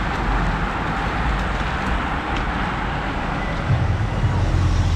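A pack of road-racing bicycles passing at speed, a steady rushing of tyres and wind. A low steady hum comes in about two-thirds of the way through.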